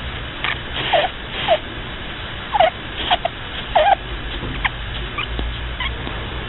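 Pet rabbit snoring in its sleep: a series of short, high squeaks that each drop in pitch, growing fainter after about four seconds, over a low steady hum.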